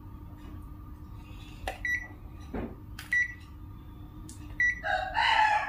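A digital multimeter beeping three times, a short high beep after each click of its buttons being pressed. Near the end a rooster crows loudly.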